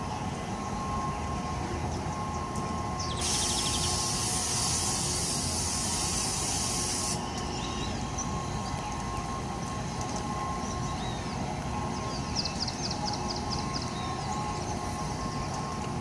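Self-control plane amusement ride running: a steady machine hum with a constant whine. About three seconds in, a loud hiss of air lasts about four seconds and cuts off sharply.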